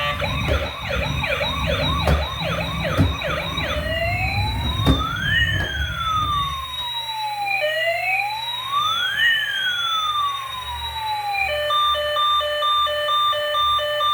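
Electronic siren of a toy emergency vehicle. It plays a fast yelp of about three swoops a second, then a slow wail rising and falling twice. Near the end it switches to an even series of electronic beeps.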